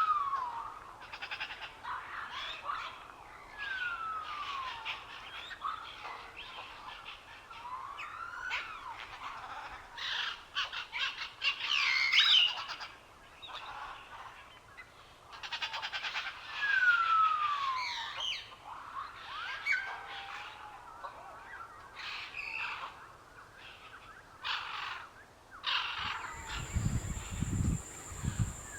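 Several birds calling and chirping, with repeated clear whistled notes that fall in pitch, mixed with shorter chirps and trills. Near the end the sound changes: a steady high tone and some low thumps come in.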